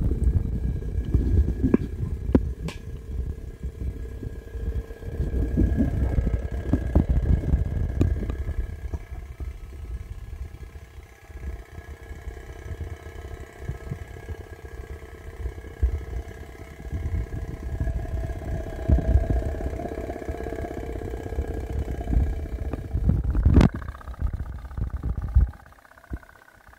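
Tin pop-pop boat's candle-heated steam engine putt-putting in a rapid low pulse. It is muffled and crackly through a wet phone microphone and drops away near the end.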